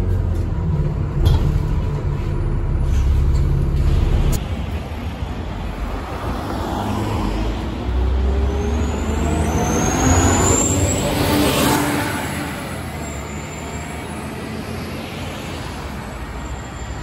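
Double-decker bus diesel engine running, with a high turbo whistle rising over several seconds and a burst of air hiss about eleven seconds in, after which it runs quieter.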